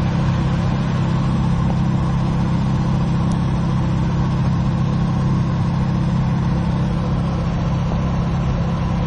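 Turbocharged Volkswagen Kombi van's engine running steadily at highway speed, heard from inside the cabin with road and wind noise.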